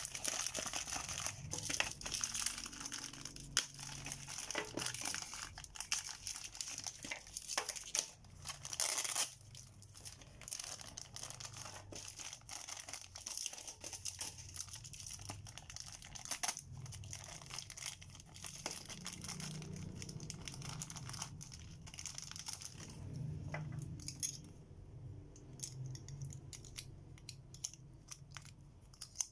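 Clear plastic packaging bag crinkling and rustling in handling, loudest in the first third, then fainter, with scattered small clicks of plastic Beyblade parts being handled and fitted together near the end.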